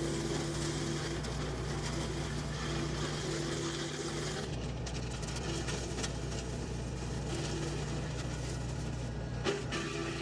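Kubota L3560 tractor's diesel engine running steadily under PTO load, driving a WoodMaxx WM-8M wood chipper. One sharp knock comes near the end.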